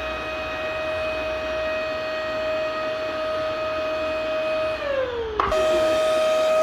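Vacuum cleaner motor running with a steady whine over a rush of air. After about five seconds the whine slides down in pitch, then cuts abruptly back to the full steady whine.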